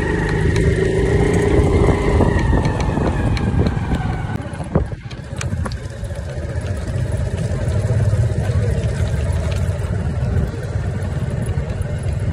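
Motorcycle running on the move, its engine note falling in pitch about two seconds in, over a steady low rumble of wind and road. A single sharp knock sounds about five seconds in.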